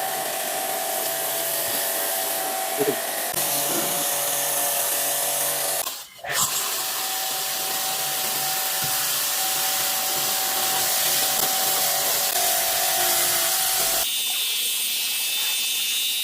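Electric pressure washer running: the motor whines steadily while the water jet hisses as it washes the air conditioner's evaporator and fan drum. The sound cuts out briefly about six seconds in, and a higher whine comes in near the end.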